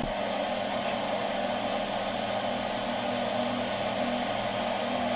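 Steady, even whir of a small electric motor and its airflow, with a low hum under it.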